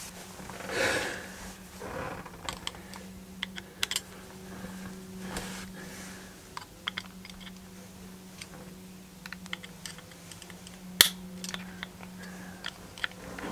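Small metallic clicks and scrapes of a tool working a steel retaining ring into its groove in a Harley-Davidson Sportster clutch pressure plate, with one sharper click near the end, over a steady low hum.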